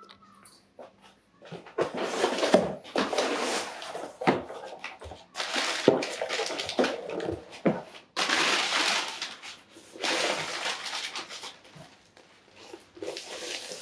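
Crumpled brown kraft packing paper rustling and crinkling in repeated bursts as it is pulled out of a cardboard box, with a few knocks from the box being handled.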